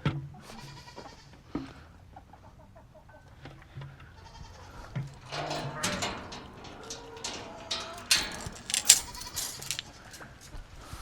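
Goats bleating a few times, with a run of sharp knocks and clatter in the middle and near the end.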